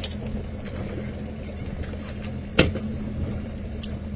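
Steady low hum of a boat's outboard motor idling, with one sharp knock about two and a half seconds in and a few faint clicks.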